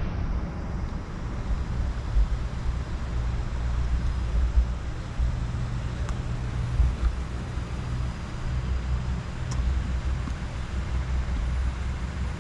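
Sport motorcycle's engine idling with the bike standing still: a steady low rumble.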